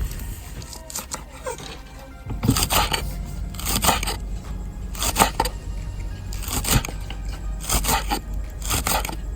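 Water splashed onto a fire-heated marble slab, hissing and sizzling in about seven short bursts roughly a second apart as each splash boils off: the sign that the stone is hot enough to cook on. A steady low background hum runs underneath.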